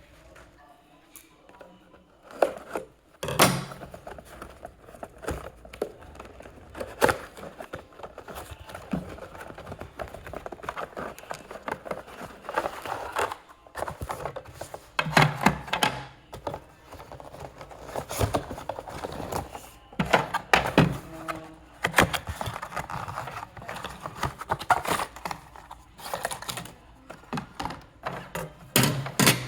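Handling noises of a fire alarm unit and its packaging: irregular clicks, rustling and crinkling, broken by several sharper knocks as the unit is set down or bumped.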